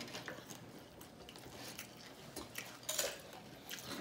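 Quiet eating sounds close to the microphone: scattered light clicks, taps and rustles of food and utensils being handled, with a sharper click about three seconds in.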